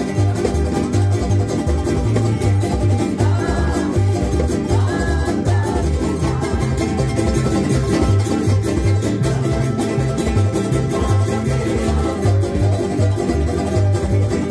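Tahitian string band music: fast-strummed Tahitian ukulele, a long-necked plucked string instrument and electric guitar over a steady pulsing bass line, played live through an amplified speaker.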